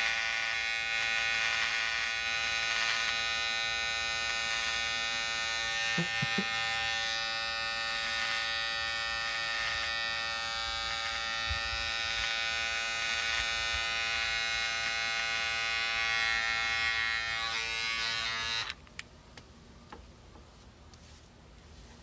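Wahl electric hair clipper running with a steady buzz as it cuts through mustache stubble. It switches off abruptly about 19 seconds in.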